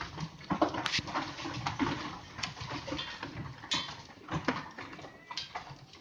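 Goats moving and feeding in a crowded pen: scattered knocks and clatter of hooves on a wooden slatted floor and against plastic feed crates.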